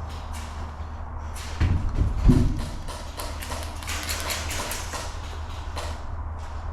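Two dull thumps close together, then rustling and light scuffing over a steady low hum.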